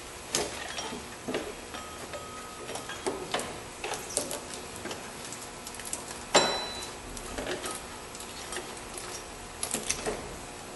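Irregular light clicks and knocks of hands working a drive belt off an engine's pulleys. About six seconds in there is one sharp metallic clank with a brief ring.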